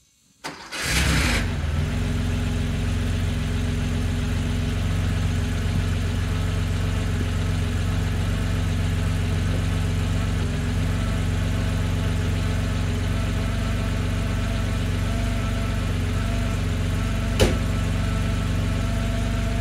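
Cold start of a freshly rebuilt 1974 Porsche 911's air-cooled flat-six: a brief crank about half a second in, the engine catches with a loud burst and settles within a second or two into a steady idle. A single sharp knock sounds near the end.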